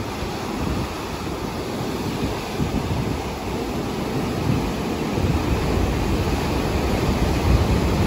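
Rough sea surf crashing onto shore rocks and washing in as churning white water, growing louder toward the end, with wind buffeting the microphone.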